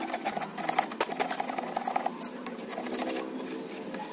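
Scraping and rubbing at the lead terminal socket of a lead-acid inverter battery as it is cleaned, with many irregular clicks. A faint steady hum of several tones comes in about halfway.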